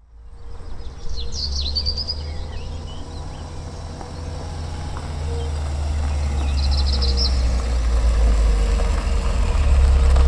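Outdoor ambience: birds chirping in short bursts over a low rumble that builds steadily louder.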